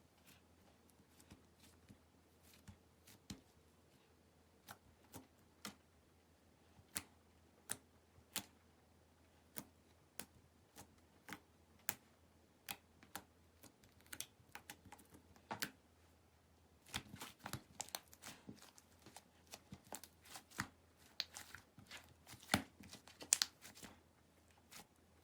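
Clear slime being worked by hand, giving scattered sharp clicks and little pops that come thick and fast in the last third.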